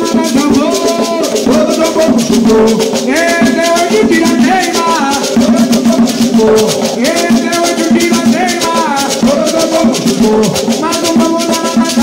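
Live Quimbanda ritual song (ponto): men singing in Portuguese over fast, continuous strokes on hand drums (atabaques), with the sung phrases repeating.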